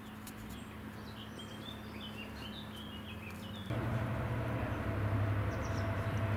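Small birds chirping and singing over a low, steady hum. About two-thirds of the way through the sound jumps suddenly to a louder, steady diesel locomotive engine running: a Class 55 Deltic's Napier Deltic two-stroke diesel engines.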